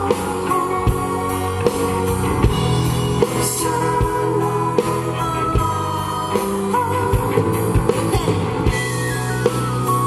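Live rock band playing: a male lead singer on a microphone over a drum kit keeping a steady beat and guitar, with a falling run of notes near the end.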